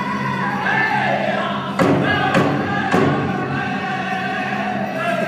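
Powwow drum group singing a chicken dance song together in high voices over a large hand drum, with three loud drumbeats about half a second apart near the middle.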